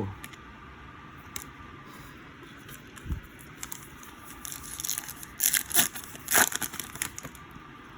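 Trading cards and a foil card-pack wrapper being handled: scattered light clicks and rustles, a soft thump about three seconds in, then a cluster of crinkling, tearing sounds from about five to seven seconds in.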